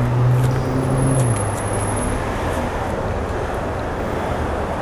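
Street traffic noise: a motor vehicle's low engine hum that drops away a little over a second in, over steady road noise.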